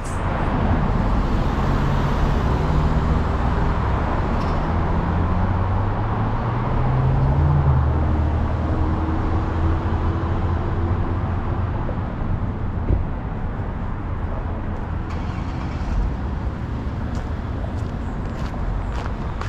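Road traffic on a city street: a steady low rumble of engines and tyres, with one vehicle's engine rising in pitch as it accelerates about seven seconds in.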